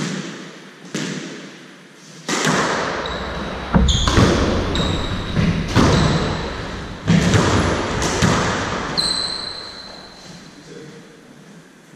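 Squash rally: the ball cracks off rackets and the court walls about ten times, each hit echoing around the enclosed court, with short high squeaks of court shoes on the wooden floor between hits. The hits thin out near the end as the rally stops.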